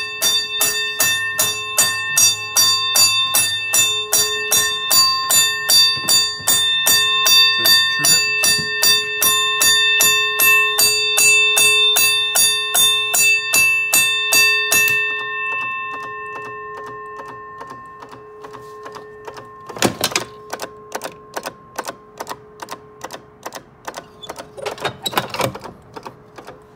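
A home-built 24-volt fire alarm bell ringing in quick, even march-time pulses, set off by smoke from a lit match at the smoke detector. The bell stops abruptly about fifteen seconds in when it is silenced, leaving a fainter rapid ticking and a couple of sharp knocks from the alarm panel's metal boxes.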